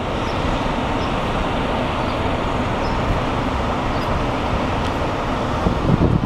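Steady city street traffic noise, an even roar of buses and cars on the road below.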